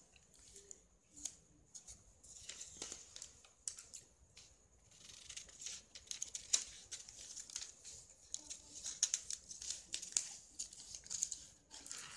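Large tailor's scissors cutting through newspaper, a run of short snips. The paper rustles and crinkles as the sheet is held and turned while the pattern is cut out.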